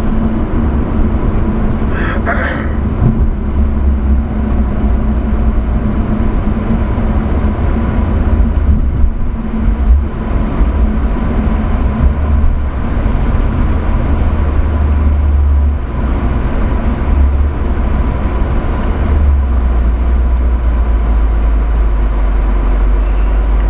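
Dodge Charger's engine and road noise heard inside the cabin, a heavy low rumble as the car slows from about 50 mph to walking pace. The rumble changes level twice in the second half, and there is a short hiss about two seconds in.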